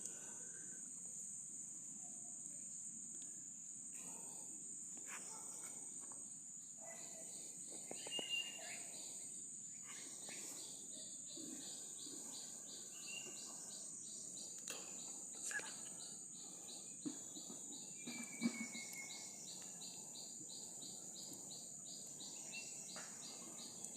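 Insects, crickets by their sound, droning steadily at a high pitch, joined about ten seconds in by a second insect's fast, even pulsing chirp of about three pulses a second. A few short bird calls and occasional brief knocks come through.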